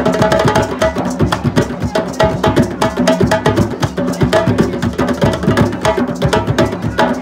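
A group of djembe hand drums playing together in a fast, dense rhythm, with many hands striking the skin heads.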